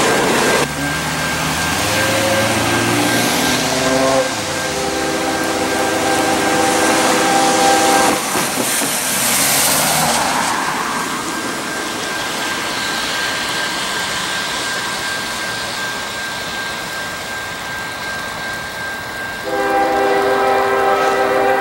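A locomotive's multi-chime air horn sounds out of sight. One blast of about four seconds comes a few seconds in, and a second blast starts near the end. A car drives past with a rush of tyre noise in between.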